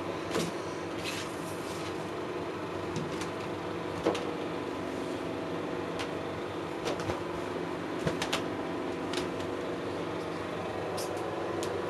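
A cat scrambling and rolling about in a plastic tub, its claws and body scraping the sides, with scattered sharp clicks and knocks, the loudest about four seconds in, over a steady background hum.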